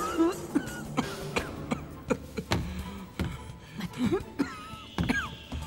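An old man coughing and clearing his throat again and again, over soft background music. The cough comes from lungs hurt by thick smoke in a fire.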